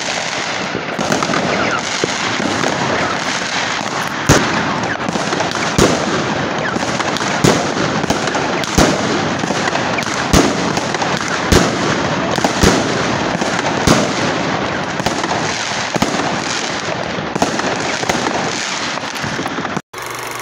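Fireworks going off: a continuous crackle of many small bangs, with a louder sharp bang about every second and a half through the middle. The sound cuts off abruptly just before the end.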